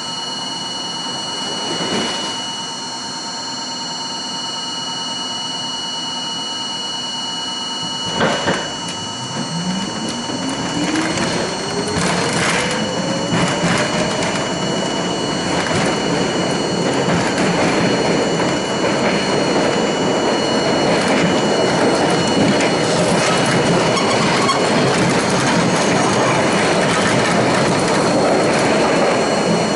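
R42 subway car standing at the platform with a steady electrical hum, then a thump about eight seconds in as it starts off. The traction motors give a rising whine as the train accelerates, building into steady, louder wheel-on-rail rolling noise with rail clicks.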